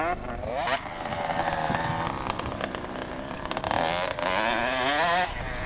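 Two-stroke Kawasaki motocross bike revving hard, its engine pitch climbing and dropping with the throttle in repeated surges. The sound breaks off abruptly about five seconds in.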